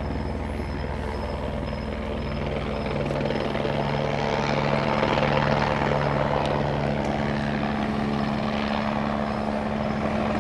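Sheriff's helicopter flying overhead: steady beating of the rotor blades over a low engine hum, growing louder a few seconds in as it comes closer.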